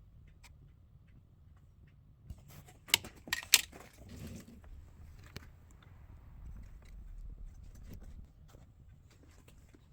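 A few sharp clicks and knocks of hard objects being handled, the loudest three in a quick cluster about three seconds in, with fainter scattered ticks around them.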